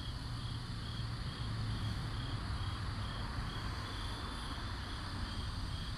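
Crickets chirping in a steady rhythm, a chirp about every half second, over a constant high insect drone, with a low steady hum underneath.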